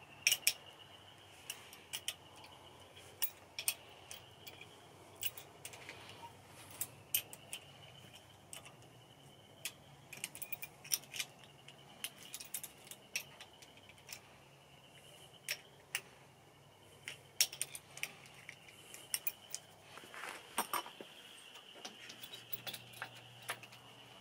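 Hand tools and a metal cable terminal clicking and clinking in irregular short strikes as a new battery-to-starter cable is fitted.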